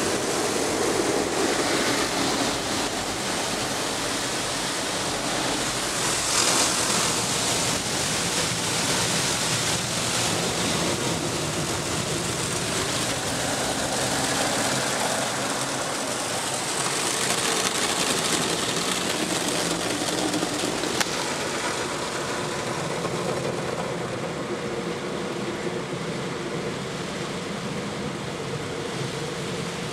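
Christ automatic car wash heard from inside the car: rotating polyethylene brushes sweep across the windows and bodywork, and water sprays and runs over the glass, all as one steady, muffled wash of noise. It eases slightly near the end as water sheets over the windscreen.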